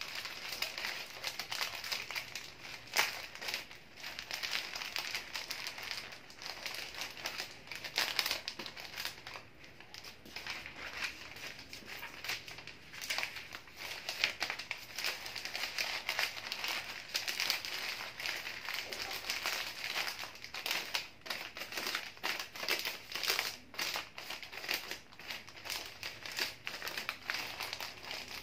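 Sheets of flower-wrapping paper crinkling and rustling as hands fold and gather them around a bouquet's stems, with many sharp little crackles all through.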